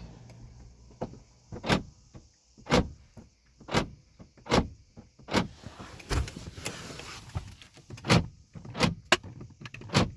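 Central locking door lock actuators of a 2010 Mercedes C180 clunking about ten times, roughly once a second, as the lock button is pressed repeatedly to test a rear door lock that won't lock or unlock.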